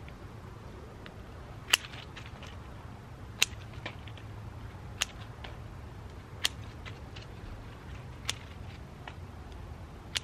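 Small scissors snipping through coleus stems: six sharp snips at fairly even intervals of about a second and a half, each followed by a few fainter clicks.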